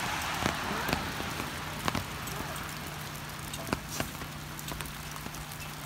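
Rain falling on puddles and wet bark mulch: a steady hiss with scattered sharp drops tapping.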